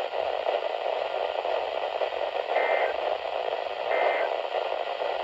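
Radio static hissing from a receiver, with two short, high-pitched data bursts about a second apart starting around two and a half seconds in, and a third just beginning at the end. The bursts are the Emergency Alert System end-of-message codes that close an alert.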